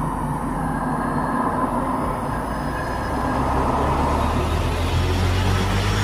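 A motor vehicle's engine running: a steady low hum that grows louder from about halfway through.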